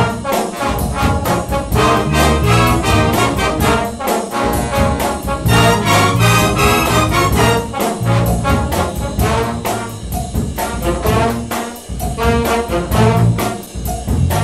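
Background music led by brass instruments over a steady beat.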